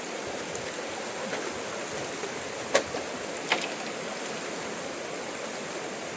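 Fast river current rushing steadily around a bamboo footbridge. Two short sharp knocks come a little under a second apart, about three seconds in.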